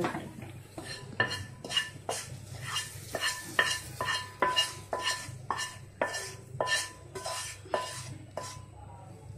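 Spoon scraping and tapping the inside of a non-stick frying pan, about two strokes a second, each with a short metallic ring, as the fried tempering is scraped out into the curry.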